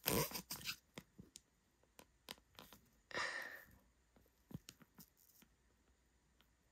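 Faint crinkling and ticking of a foil trading-card pack wrapper handled between the fingers, mostly in the first second, with a short soft rustle about three seconds in.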